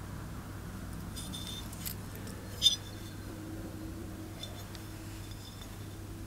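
Small brass lure parts and a brass jig clinking and tapping as they are handled, with one sharp metallic click about two and a half seconds in, over a steady low hum.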